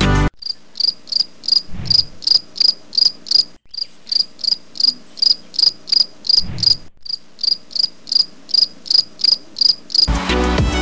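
An insect chirping in a steady rhythm, about three high chirps a second, with a couple of soft low thumps.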